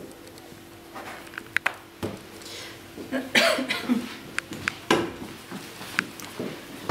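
Light clicks and knocks of objects being handled at a table in a small room, with a faint steady hum. A louder short noisy burst comes about three seconds in.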